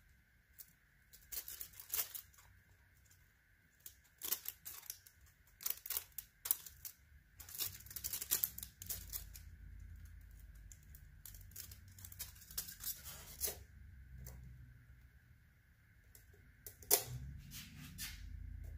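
Steel head gasket for a Ford 4.6 four-valve V8 clicking and scraping against the head studs and block deck as it is lowered over the studs into place. The light, irregular metallic clicks and rasps are scattered over most of the time, with a faint steady high hum underneath.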